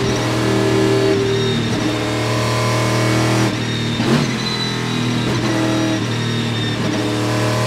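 Panoz Esperante GTR-1's 6-litre V8 race engine running hard under load, heard from inside the cockpit. The engine note holds a steady pitch, with a brief dip and change about four seconds in.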